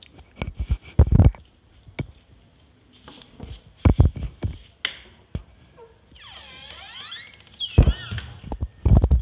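Knocks and taps of footsteps and of the phone being handled as it swings about, with a short squeak that slides down in pitch and back up about two-thirds of the way through.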